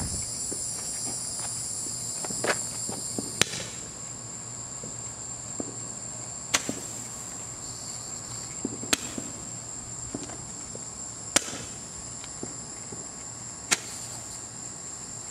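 Crickets chirping steadily, with five sharp pops spaced about two to two and a half seconds apart.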